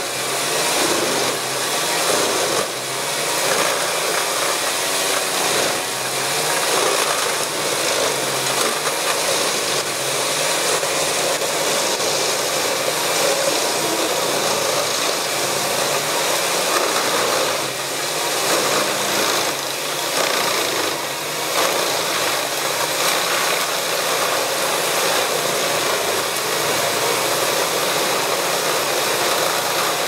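Truck-mounted wood chipper running hard while its crane feeds it branches and logs, chewing the wood and blowing chips out of its discharge spout: a steady, dense grinding and rushing noise with a few brief dips.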